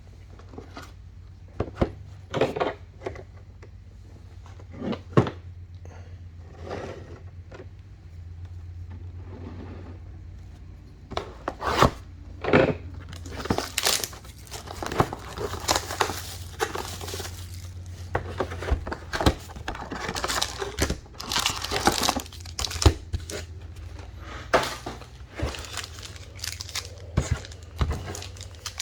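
Trading-card pack wrappers for 2021 Prizm Draft Picks being torn open and crumpled while cards are handled. A few scattered rustles come at first, then steady, dense crinkling from about a third of the way in, over a low steady hum.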